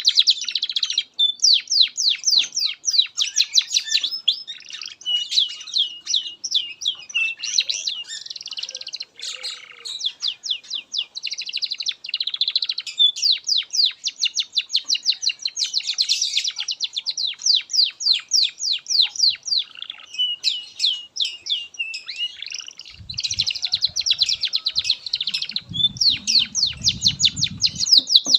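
Domestic canary singing a long, unbroken song of high, fast trills and rapidly repeated rolling notes. A low rumbling noise runs under it for a few seconds near the end.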